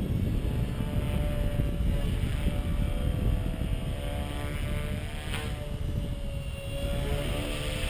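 Gaui EP200 small electric RC helicopter in flight: its motor and rotors give a steady pitched whine that wavers gently in pitch as it manoeuvres. A low, gusty rumble of wind on the microphone lies beneath it.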